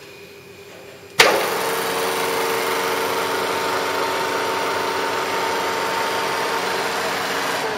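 Butler Elgamill CSN10 milling machine switching on about a second in with a sharp click, then running steadily with a hum and a few steady tones over a hiss.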